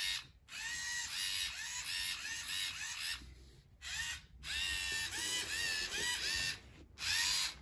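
The LEGO Mindstorms EV3 GRIPP3R robot's electric servo motors and plastic gears whine as it moves, in quick rising-and-falling pulses, about three a second, in runs with a few short breaks.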